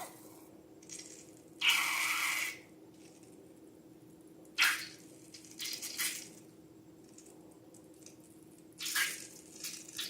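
Slime being handled: several short wet squishing and dripping sounds, each lasting under a second, with gaps between them. A faint steady hum runs underneath.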